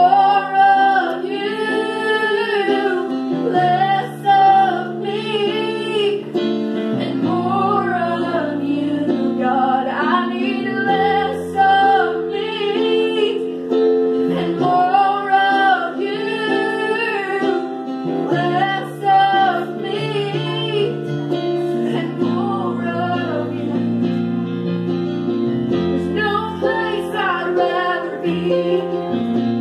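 Two women singing a gospel song, accompanied by a Kawai digital piano playing held chords under the melody.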